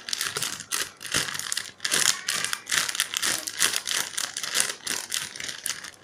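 Clear plastic bag crinkling in irregular crackly bursts, several a second, as hands squeeze and handle a banana squishy inside it.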